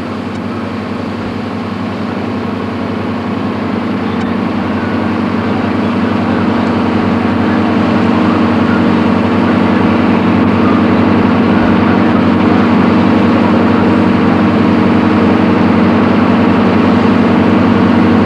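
Tour boat's engine running with a steady drone, growing gradually louder.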